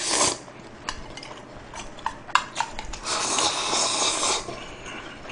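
A man slurping bibim jjolmyeon noodles, then a few small eating clicks, then a longer slurp of about a second and a half as he drinks from a metal bowl.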